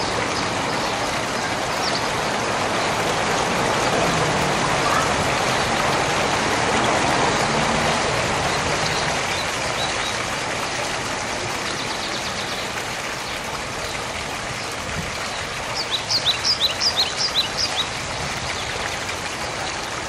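Water from a small rock-garden fountain cascading steadily into its pool, a continuous splashing rush. Near the end a small bird chirps rapidly for about two seconds.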